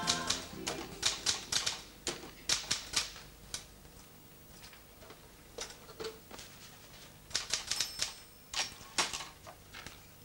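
Typewriter being typed on in quick runs of keystrokes, with a thinner stretch of a few seconds in the middle before another run.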